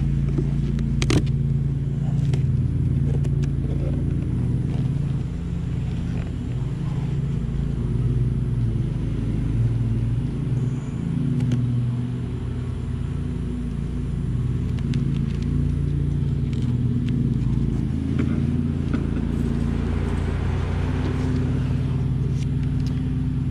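A mass of honeybees buzzing loudly and continuously, a wavering drone from an agitated, defensive colony stirred up by the hive being opened. A few light knocks of the wooden hive box being set back in place come through, the sharpest about a second in.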